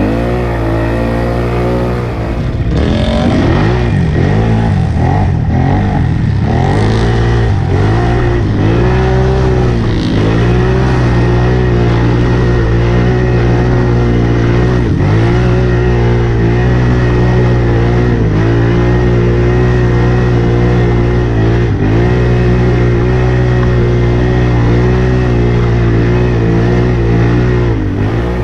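Can-Am ATV engine running and revving, its pitch rising and falling again and again, quickest in the first several seconds, over a steady engine drone.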